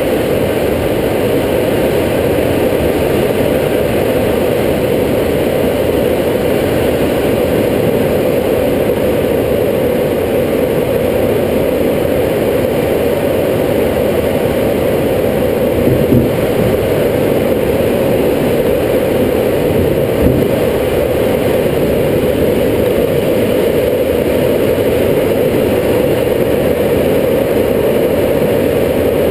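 Steady rushing airflow noise inside a glider's cockpit in flight.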